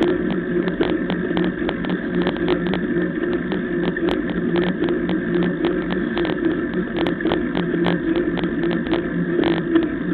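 Mountain bike rolling fast on asphalt, heard through a camera mounted on the bike: a steady droning hum from the tyres and rushing air, with frequent small clicks and rattles from the bike and camera mount over the road surface.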